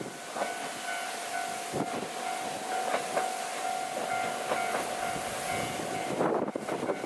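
A KiHa 54 single-car diesel railcar running, with a steady whine that stops about six seconds in, over strong wind buffeting the microphone with a few sharp knocks.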